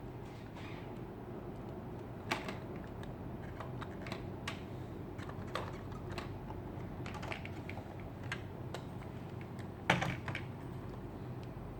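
Robot vacuum cleaner running with a steady low hum, with irregular sharp clicks and knocks over it, the loudest about ten seconds in.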